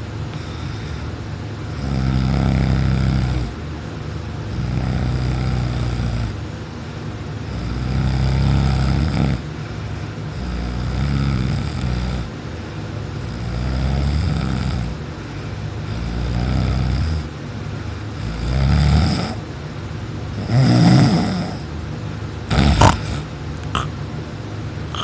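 A sleeping person snoring loudly in a steady rhythm, one drawn-out rattling snore about every two and a half to three seconds, the later ones shorter. A single sharp knock comes near the end.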